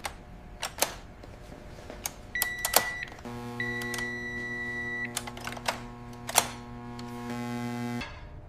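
Steady electrical hum with a scatter of sharp clicks and two steady high beeps, a short one about two and a half seconds in and a longer one about a second later; the hum drops out at the start, returns about three seconds in and stops near the end.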